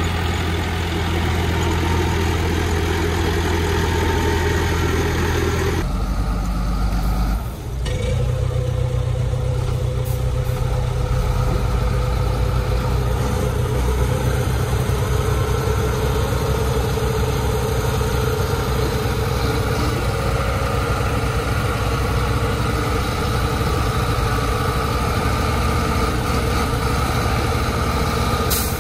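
Heavy diesel engines running: a crawler bulldozer working close beside a stuck Howo dump truck, then, after an abrupt change about seven seconds in, the Howo dump truck's diesel running steadily as it sits bogged in the sand.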